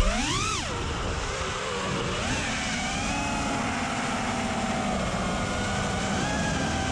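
An FPV freestyle quadcopter's brushless motors and propellers whining in flight, the pitch following the throttle. There is a sharp rise and fall about half a second in, a smaller swell a couple of seconds later, then a steadier whine with gentle swells.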